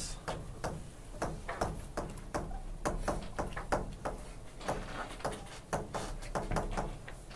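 Stylus writing on the glass screen of an interactive digital board: a run of irregular light taps and scratches, several a second, as each letter is drawn.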